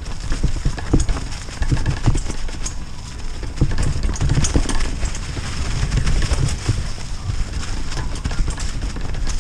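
Brodie Libido freeride mountain bike riding fast down a leafy dirt trail: tyres rolling over leaves and soil under a steady low rumble, with frequent knocks and rattles as the bike hits bumps and roots.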